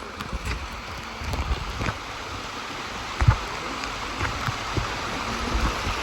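Rushing water of a rainforest waterfall and stream, a steady hiss. Uneven low thumps run through it, with one sharper knock about halfway through.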